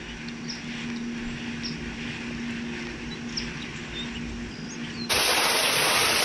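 Outdoor pond-side ambience: a steady low hum with a few faint, short bird chirps. About five seconds in, it cuts abruptly to a much louder, steady hiss.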